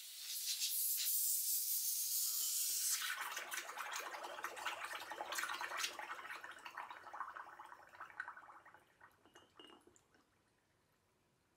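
Gas hissing hard out of a leaking Tokyo Marui MK23 airsoft pistol gas magazine for about three seconds. The magazine then goes into a mug of water, and the escaping gas bubbles and fizzes there before dying away near the end.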